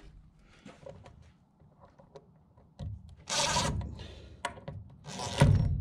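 DeWalt cordless drill driving a screw into a wooden barn truss in short bursts: one lasting under a second about three seconds in, another brief one near the end.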